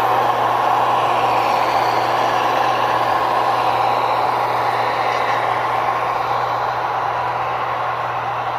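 Simulated diesel locomotive engine sound from the Soundtraxx Tsunami sound decoders in HO scale locomotives, played through their small onboard speakers: a steady engine drone that slowly fades as the locomotives move away.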